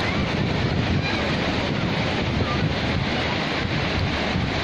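Sea waves breaking and washing up a sandy beach, with wind rumbling on the microphone, steady throughout.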